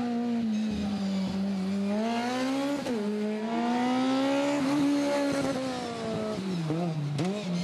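BMW formula race car's engine revving hard as it laps. The pitch climbs, drops sharply at a gear change about three seconds in, then climbs again. Near the end it falls away with short dips and blips as the car slows for a corner.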